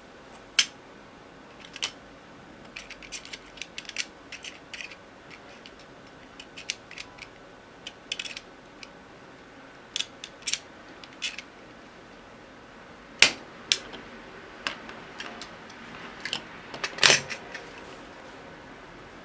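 Small hand tools clicking and scraping against a circuit board while a burnt track is being repaired: scattered sharp ticks and short scrapes, with a louder click about thirteen seconds in and a brief cluster about seventeen seconds in.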